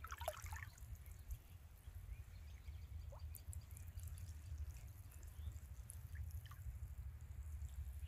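Quiet pond ambience: a steady low rumble with faint water drips and small plinks, a quick cluster of them just after the start and a few scattered ones later.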